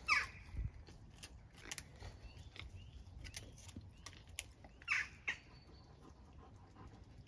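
A young puppy squeaks: one short falling squeak at the start and two more close together about five seconds in, with faint clicks in between.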